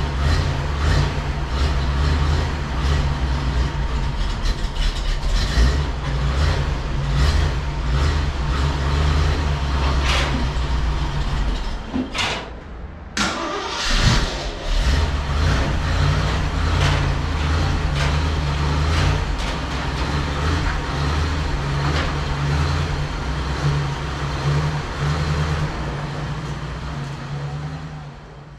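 Jeep CJ-5 engine running at idle, a steady low rumble with light ticks and rattles over it. It cuts out for about a second a little before halfway, then runs on, fading away near the end.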